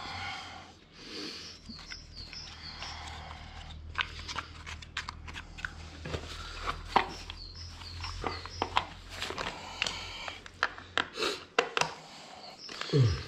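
Screwdriver and hands working on the engine of a Husqvarna 553RBX backpack brush cutter: irregular small clicks, taps and scrapes against the plastic housing and carburettor area, over a faint steady low hum.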